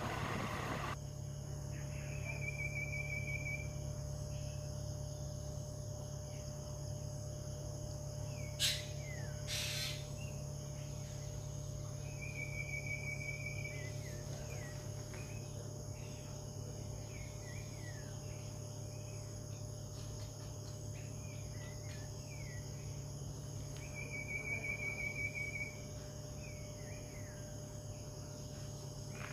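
Steady high insect drone, like crickets, with a short even trill about every ten seconds and scattered bird-like chirps, over a low steady hum; two brief clicks about nine seconds in.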